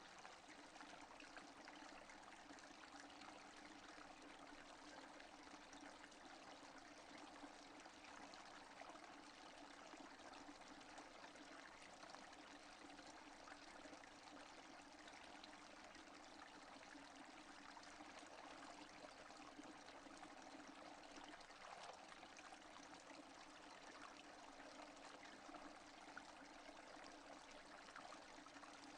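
Rain falling steadily without thunder: a faint, even hiss of many drops.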